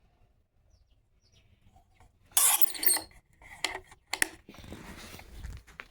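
Handling noises: after a quiet moment, a short loud rustling scrape about two seconds in, then a few sharp clicks and clinks and a faint hiss.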